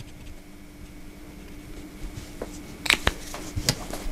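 Small hand tools handled on a tabletop: a cluster of light clicks and taps starting about three seconds in as needle-nose pliers are picked up, over a faint steady hum.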